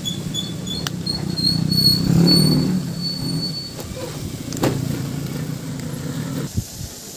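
Low, steady rumble of a nearby motor vehicle's engine that cuts off abruptly near the end, with a few light clicks and a faint, high, repeated chirping.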